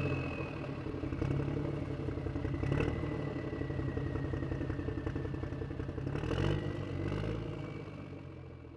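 Motorcycle engine running with a few short revs, then fading away as the bike rides off.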